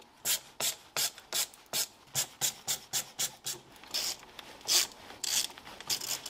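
A hand tool working in quick rasping strokes, about three a second, while a car speaker is fastened to its mounting bracket. In the second half the strokes become fewer and longer.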